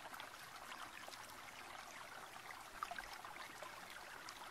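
Faint steady background hiss with a few tiny ticks scattered through it.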